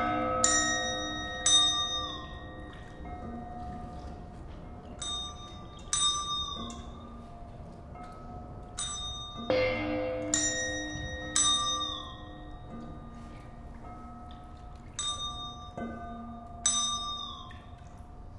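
Live contemporary chamber music: struck, bell-like percussion notes ring out every second or few over sustained low held tones, and some of the ringing notes bend downward in pitch as they fade.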